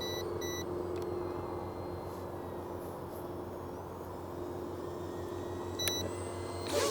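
Electric motor and propeller of the XK X450 VTOL RC plane droning steadily in flight, with short paired beeps from its radio transmitter right at the start and again near the end. The flyers put the transmitter's beeping down to a low battery.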